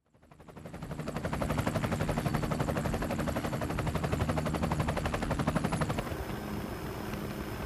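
Helicopter rotor chop and engine noise heard from the aircraft, fading in from silence and pulsing rapidly. About six seconds in it changes to a steadier aircraft hum with a faint high whine.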